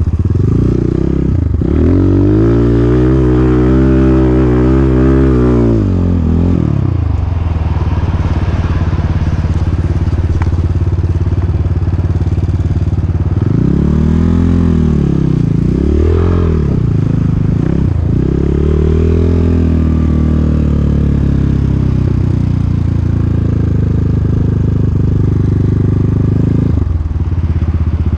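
Off-road motorcycle engine heard from the rider's seat while under way. It revs up and falls back in one long sweep near the start, then in several shorter rises and falls around the middle, with steadier running in between.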